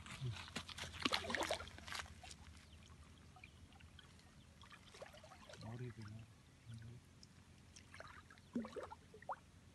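Water splashing and sloshing as a large catfish is lowered into shallow water at the bank and released, a burst of splashes in the first two seconds, then faint, scattered lapping.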